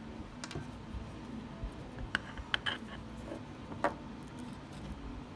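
A handful of light, sharp clicks and taps at uneven intervals, from small parts and hand tools being handled while a car distributor is taken apart.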